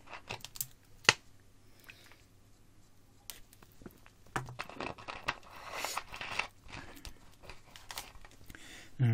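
Small clicks and knocks of something handled close to the microphone, with a sharper click about a second in, then a long breath out from about five seconds in.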